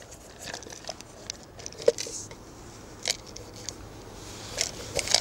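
Small clicks and rustles of hands handling fishing tackle, with a few sharp ticks, the sharpest about two and three seconds in.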